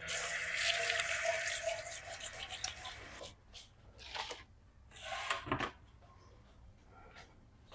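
Kitchen faucet running into the sink for about three seconds, then turned off, followed by a few short splashes and knocks.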